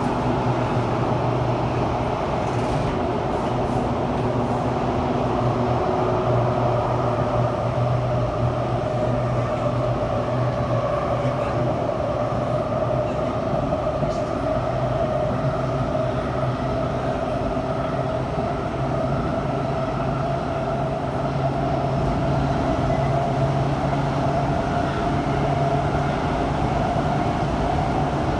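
Kawasaki-Sifang CT251 metro train running at speed through a tunnel, heard from inside the car: a steady, loud rumble with an even low drone. The video's title blames the heavy rumble on flat spots on the wheels.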